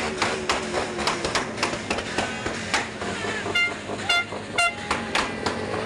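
Rapid, even banging at about four knocks a second, with three short horn toots about midway through.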